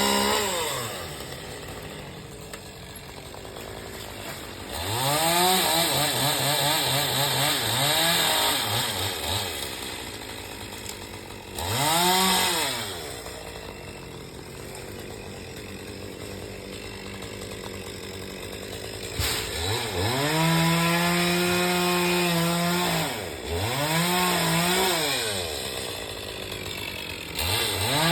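Chainsaw revving up in about five bursts, each rising in pitch, holding briefly and falling back, with the saw idling between them.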